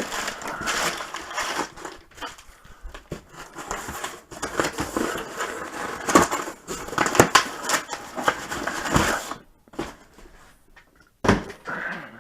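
Packaging being handled and unwrapped: irregular rustling and crinkling with many small clicks and knocks, a quieter stretch near the end, then one sharp knock.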